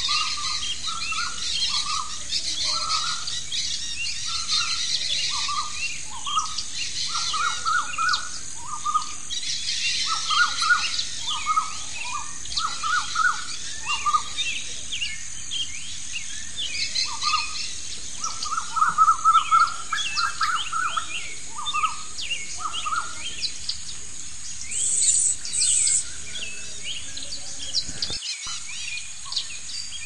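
Birds chirping and calling: one bird repeats short chirps in quick runs over many fainter, higher chirps from other birds, with a steady high hiss behind and a brief high buzz near the end.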